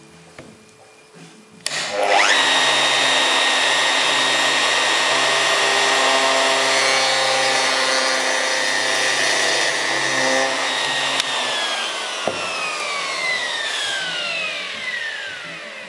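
Electric router switching on about two seconds in and revving up to a steady high whine while it mills out the scratched spot in the plywood formwork board. About eleven seconds in it is switched off and winds down with a long falling whine, with a short knock partway through.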